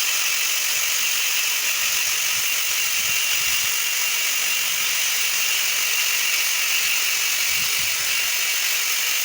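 Grinder running steadily with the rear drum brake shoes' lining held against it, a steady grinding noise with a faint high whine. The brake shoes are being polished clean to cure rear drum brake noise, which the mechanic blames on brake dust on the lining.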